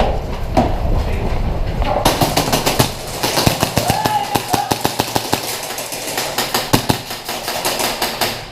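Airsoft guns firing, rapid irregular volleys of sharp shots starting about two seconds in, after a low rumble of movement.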